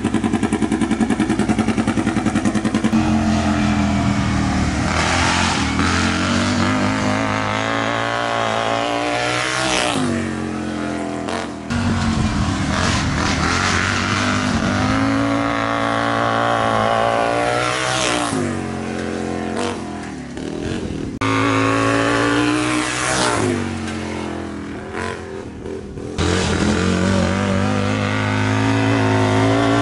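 Racing lawn mower's small engine revving hard and easing off over and over as it laps the track, its pitch climbing and dropping every few seconds.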